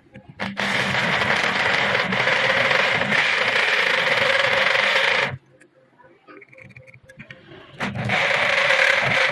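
Power drill running a carbide hole saw as it cuts, a steady grinding whine for about five seconds that stops, then starts again near the end.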